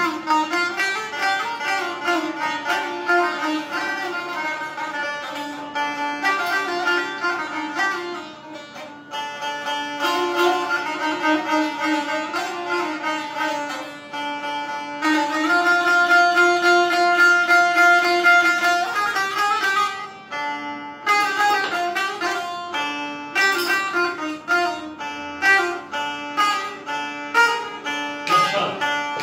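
Azerbaijani saz, a long-necked lute, played solo: a quick plucked melody over a steady drone, with a run of long held notes about halfway through that is the loudest part.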